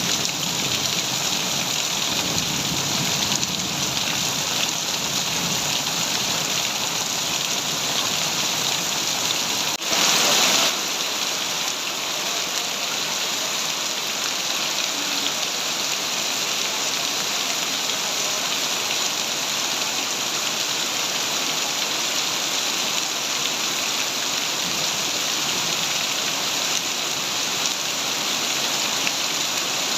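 Heavy rain falling steadily, an even hiss of rain on surfaces, with a brief louder surge about ten seconds in.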